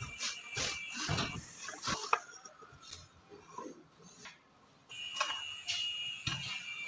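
Light wooden knocks and taps as thin pine box sides with rosewood strips are handled and stood together on a stone tabletop, scattered irregularly with the sharpest knock about two seconds in and a quieter spell in the middle.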